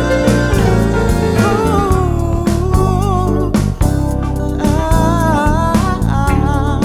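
Tango song with a wavering melodic line, perhaps a voice, over guitar and a steady beat.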